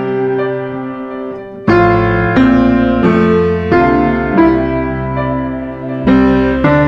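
Background piano music: slow, soft notes and chords, with a louder chord coming in a little under two seconds in.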